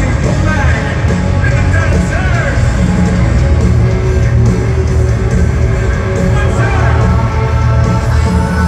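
Live hard-rock band playing loud: electric guitar with lines that bend in pitch over heavy drums and bass, with some yelled vocals.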